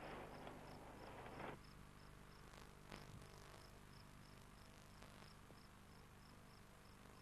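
Faint night ambience: a cricket chirping steadily about twice a second, with a soft rustling hiss for the first second and a half and a few faint ticks later.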